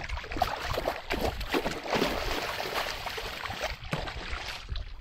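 Water splashing hard and irregularly as a small kingfish (king mackerel) thrashes at the surface beside a kayak while it is grabbed by hand and landed. The splashing stops abruptly at the end.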